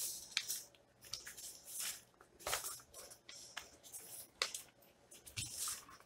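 Sheets of paper being shuffled and slid across a desk: a run of short, irregular rustles.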